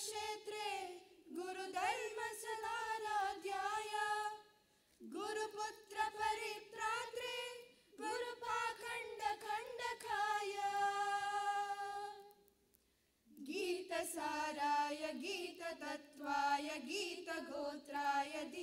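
Group of young women singing a Hindu devotional invocation in unison, unaccompanied. It comes in sung phrases broken by short pauses, with one long held note a little past the middle.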